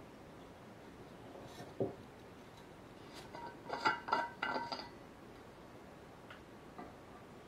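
Stainless steel screw cap of an insulated water bottle being unscrewed. A soft knock comes just before two seconds in, then a quick cluster of ringing metallic clinks and scrapes from the threads about three to five seconds in.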